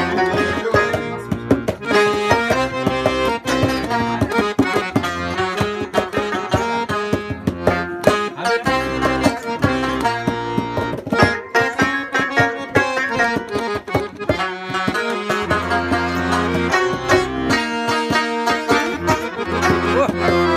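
Instrumental break of a Persian folk song: a rubab is plucked in quick, busy runs over long held low notes. No singing is heard.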